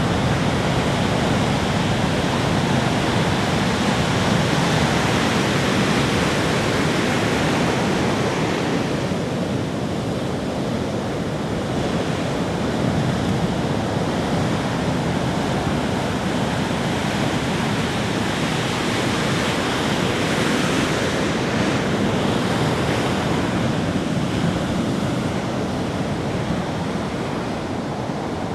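Ocean waves breaking and washing on a beach, a continuous surf rush that swells and ebbs slowly, with wind noise on the microphone.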